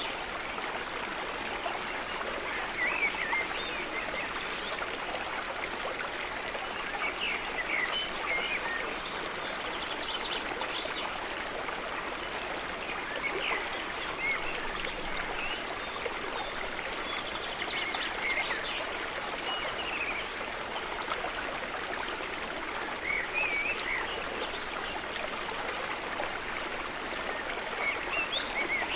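Stream water flowing steadily with an even rush. Short, higher gurgling sounds come every few seconds.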